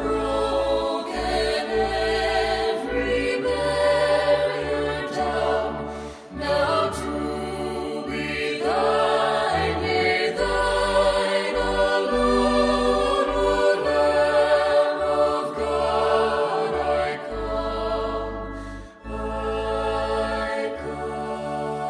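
Slow gospel hymn: choir-like voices singing long, held notes with vibrato over sustained bass notes that change in steps, with short breaks between phrases about six and nineteen seconds in.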